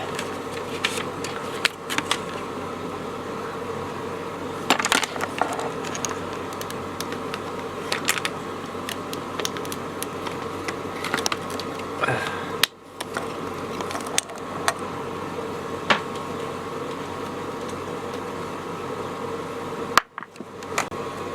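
Light clicks and taps of small parts being handled and fitted as the front USB port module goes back into its bracket, over a steady hum. There are two brief drops in level, near the middle and near the end.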